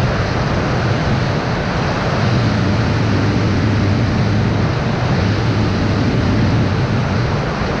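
FPV quadcopter in flight: a steady loud rush with a low hum, wind on the microphone mixed with motor noise.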